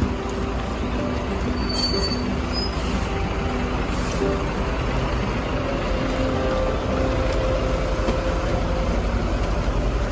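Steady street traffic noise, dominated by the low rumble of a large road vehicle's engine such as a bus or truck.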